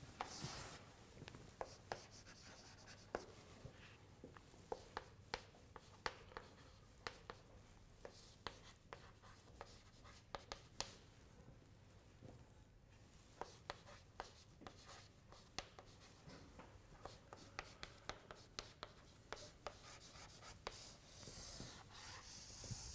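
Chalk on a blackboard as an equation is written out: faint, irregular taps and short scratches of the chalk stick against the board.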